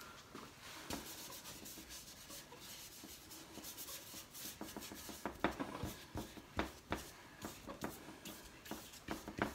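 Faint rubbing and scratching of a paintbrush stroking paint onto paper and working in a palette, with scattered sharp clicks and taps, more of them in the second half.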